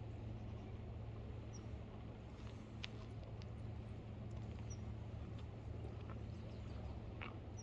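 Steady low rumble of the outdoors by a flowing river, with a bird's short high chirp about every three seconds and a few light clicks around the middle.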